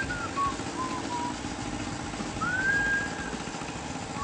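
Steady hum of a small portable generator engine running, with high whistled notes over it: a short run of falling notes at the start and one long rising, held note about halfway through.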